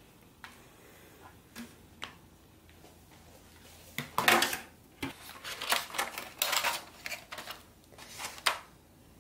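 A plastic watercolour paint case being opened and handled: a few faint clicks, then a burst of plastic clicking and rattling about four seconds in. Scattered clicks and light knocks follow.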